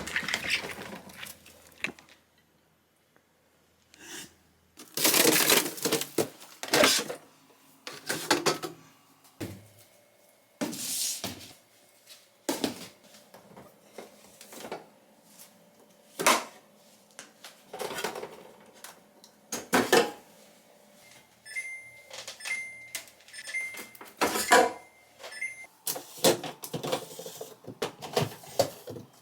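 Household items being handled in a kitchen: a string of knocks, clicks, clatters and rustles as things are picked up and set down. A little past two-thirds of the way through, a run of about five short electronic beeps sounds from an appliance.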